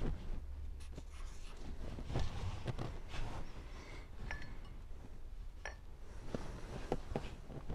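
Cloth rag rubbing over a Jaguar V-12 cylinder liner, then a series of light knocks and clinks, some with a brief metallic ring, as the metal liners are set down on a towel-covered bench.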